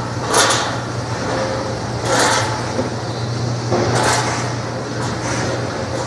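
Air-bubble vegetable washing machine running: a steady motor hum under a constant wash of spraying, bubbling water. About every two seconds there is a short rushing noise as carrots slide down the stainless steel chute into the tank.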